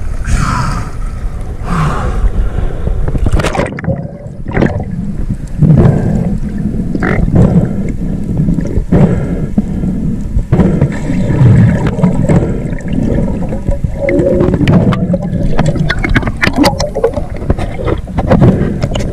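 Sea water sloshing and gurgling against an action camera's housing at the surface, then going muffled as the camera goes under about four seconds in: a steady underwater rushing and rumble with scattered clicks and knocks.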